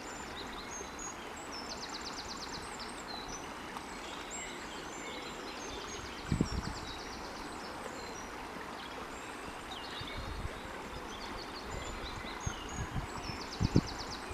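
Outdoor ambience of steady rushing flowing water with small birds chirping over it, including a short rapid trill heard three times. A few low thumps come about halfway and again near the end.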